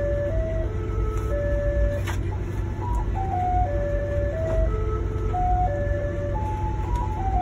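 Ice cream truck's chime playing a short jingle of single clear notes, the phrase repeating about every three and a half seconds, over the steady low rumble of the truck's running engine, heard from inside the cab.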